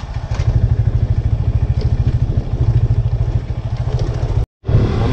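Motorcycle engine running at a steady pace while the bike is ridden, heard from the rider's seat, with a few light clicks and rattles. The sound cuts out abruptly for a moment near the end.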